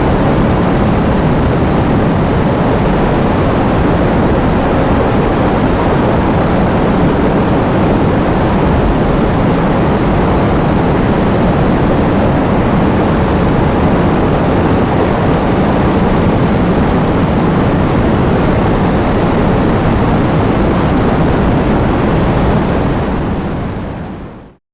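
Heavy rain pouring down with strong wind, a steady, dense roar that fades out about two seconds before the end.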